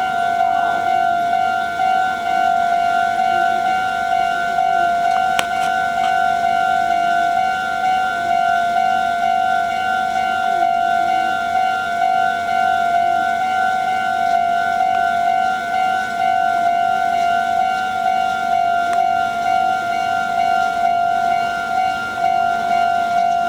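Japanese railway level crossing's electronic warning bell ringing steadily, a high ringing tone that does not let up, warning that a train is approaching.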